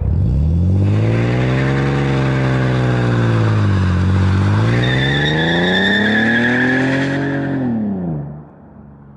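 Mercedes C32 AMG's supercharged 3.2-litre V6 accelerating hard away. The exhaust note climbs, drops at an upshift about four seconds in and climbs again, with a high supercharger whine joining in. Near the end the pitch falls and the sound fades out as the car gets far off.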